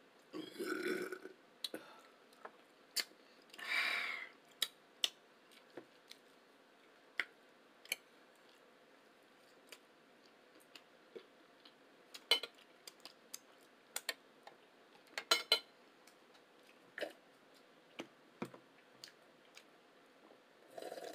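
A burp about half a second in, then a breathy rush about four seconds in, followed by close-miked eating sounds: sharp, scattered mouth and chewing clicks.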